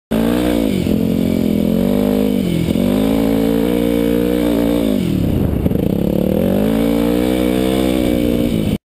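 Yamaha WR250 dirt bike engine running under the rider's throttle. The revs dip briefly twice, drop deeply about five seconds in, then climb again. The sound cuts off suddenly near the end.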